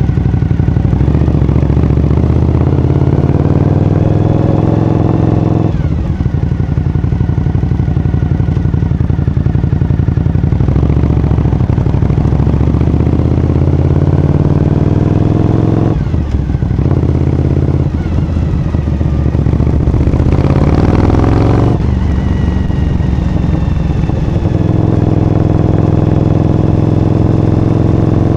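Suzuki TL1000S's 90-degree V-twin through a Striker carbon exhaust, heard from the rider's seat while riding. The engine note climbs in pitch in repeated pulls and drops back sharply about every five seconds.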